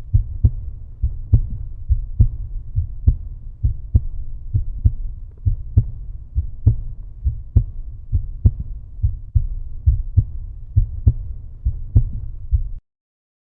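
End-screen background music: a bass-heavy beat with a steady kick pulse about two beats a second and little else audible above the low end. It cuts off abruptly near the end.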